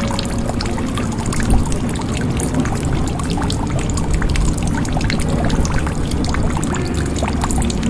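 Water pouring steadily into a jug, with many small splashes and drops.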